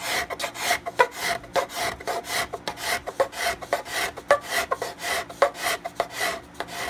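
Steel scraper shaving an inlaid wooden rosette on a guitar top in quick, repeated strokes, several a second, leveling the rosette flush with the surface of the top. The scraping stops at the very end.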